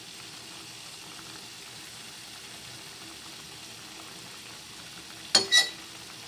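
Faint steady hiss from the pot of milkfish and vinegar on the stove as cooking oil is poured over it, then two quick sharp clinks about a second before the end.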